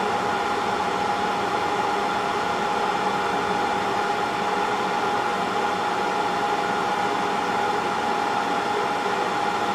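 Steady whir of an electric fan or blower with a constant whine, unchanging in level.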